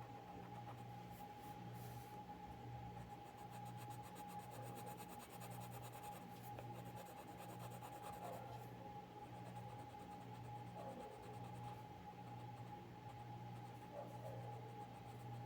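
Colored pencil scratching on paper in rapid strokes, faint and steady, over a constant thin electrical hum.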